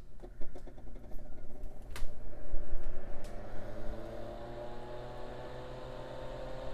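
Tektronix TM5006 power frame switched on: a sharp click about two seconds in, then its original 120-volt AC cooling fan spins up, a rising whine that settles into a steady hum. The fan makes significant noise, too loud for audio work at the bench.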